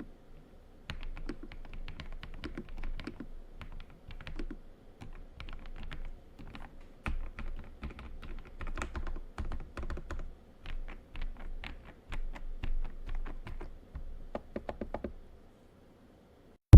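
Typing on the AULA F108 Pro wireless mechanical keyboard: a quick, uneven run of key clacks that stops about a second before the end.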